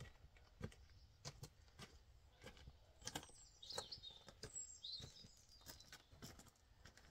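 Faint footsteps crunching on gravel, roughly two steps a second, as a person walks carrying a load of timber boards. Birds chirp briefly about halfway through.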